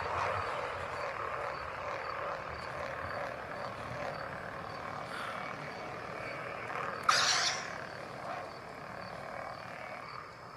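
Outdoor evening ambience: a steady rushing noise that slowly fades, with faint, evenly repeated high chirping like insects. A sudden short, loud swish comes about seven seconds in.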